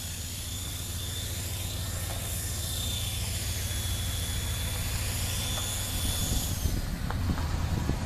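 Radio-controlled Align T-Rex helicopter in flight: its motor and rotor head give a high whine that wavers slightly in pitch and cuts off about seven seconds in as it sets down. A steady low rumble runs underneath, and near the end come a few light knocks.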